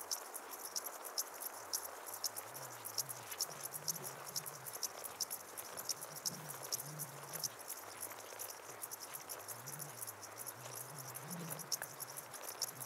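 Meadow insects chirping in the grass: a steady run of short, high-pitched chirps, several a second, over a faint outdoor hiss.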